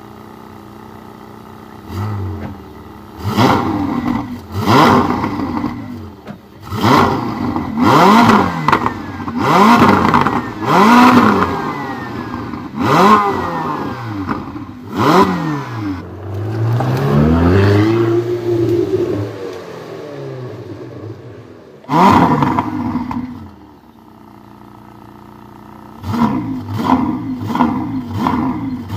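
Supercar engine idling, then revved again and again: a string of sharp blips that each rise and fall in pitch, a longer rev in the middle, one more blip, and a quick run of short blips near the end.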